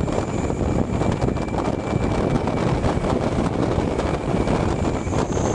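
Steady rush of wind on a bus's roof-mounted microphone over the drone of the bus moving along the road.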